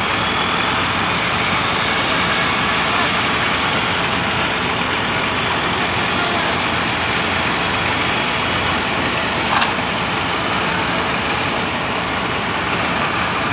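Schwing concrete pump truck's diesel engine running steadily, with one brief knock about ten seconds in.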